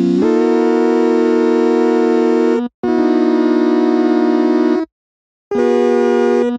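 Sustained chords played from a keyboard on a sampler instrument made by looping a tiny slice of an audio recording, giving a bright, buzzy, organ-like tone. A few chords are held for a couple of seconds each and cut off sharply, with short silences between them.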